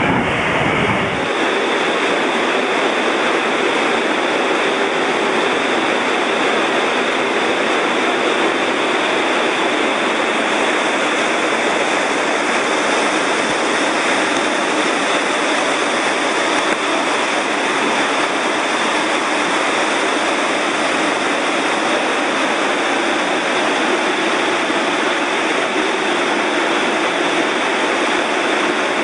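Steady rushing of whitewater rapids on an artificial slalom course.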